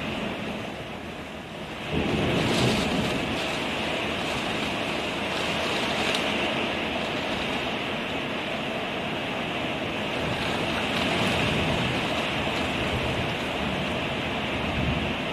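Torrential rain pouring down in a steady hiss, heard through a mobile phone's microphone. About two seconds in, a sudden louder swell with a deeper low end comes in, a thunderclap following a lightning flash.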